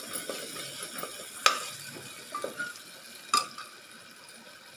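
Metal spoon stirring and scraping a frying masala with grated potato in an aluminium pot, over a low sizzle. The spoon clinks sharply against the pot about a second and a half in and again near three and a half seconds, with a few lighter knocks between.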